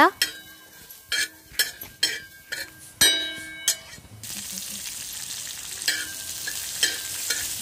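Metal spatula scraping and stirring coriander seeds on a hot flat iron griddle, in separate strokes with a brief metallic ring. About four seconds in, a steady sizzle of frying sets in and continues, with further spatula strokes over it.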